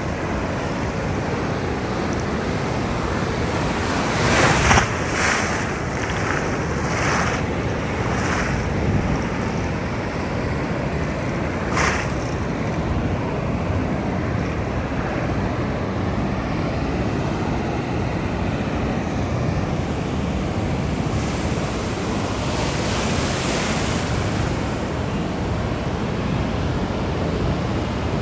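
Ocean surf: a continuous wash of waves with several louder breaking crashes a few seconds in, another sharp one around twelve seconds, and a rise of hissing spray near the end.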